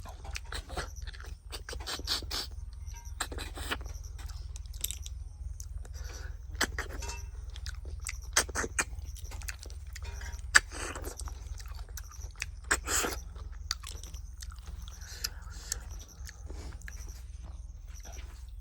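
Close-up mukbang eating of cooked snails: chewing and mouth smacks with many irregular small clicks and crunches, one sharp click about ten and a half seconds in, over a steady low hum.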